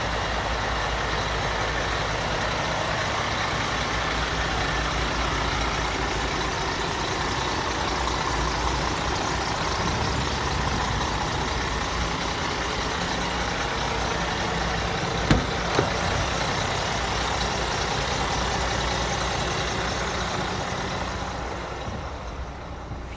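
Scania R440's 13-litre inline-six diesel idling steadily, heard from beside the cab, with two sharp clicks about fifteen seconds in. Near the end the sound gets quieter and duller as it is heard from inside the cab.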